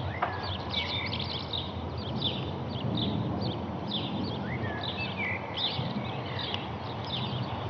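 Small birds chirping rapidly, several short high chirps a second with a few whistled calls, over the steady low rumble of a Boeing 767-200 airliner cruising high overhead.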